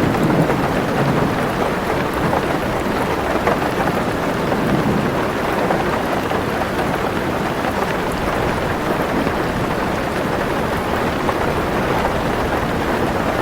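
Heavy rain falling steadily on a car roof, with a low roll of thunder fading away over the first couple of seconds.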